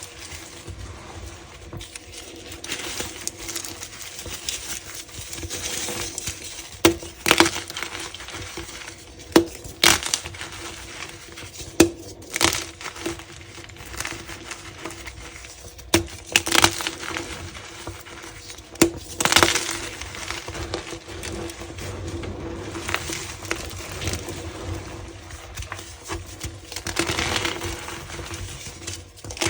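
Gym chalk being crushed and crumbled by hand: steady crunching broken by sharp snaps every second or few, over a faint steady hum.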